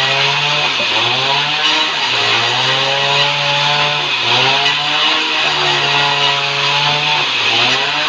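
A vertical band saw ripping a plank of light sengon wood: a steady drive hum under a loud hiss of the blade cutting. The hum sags briefly and recovers three times, about a second in, near the middle and near the end.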